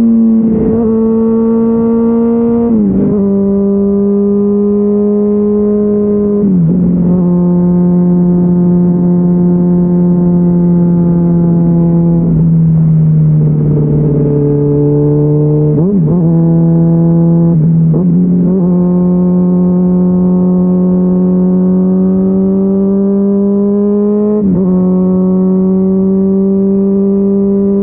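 Honda CBR600RR's inline-four running loud through a GPR Deeptone exhaust with the dB killer removed, held at fairly steady revs. The pitch steps down about 3 and 6 seconds in and dips lowest around 13 seconds, then steps back up around 16 and 24 seconds as the gears change.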